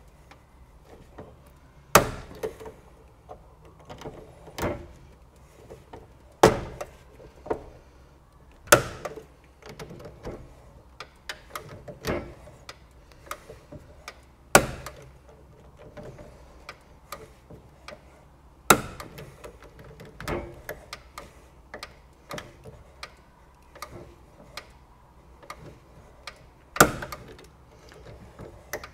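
Digital torque screwdriver tightening terminal screws in a distribution board: a run of light ticks, broken every two to four seconds by a sharp, loud click.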